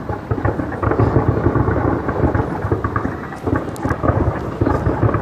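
Fireworks barrage firing: a dense, continuous run of rapid crackling pops over a deep rumble.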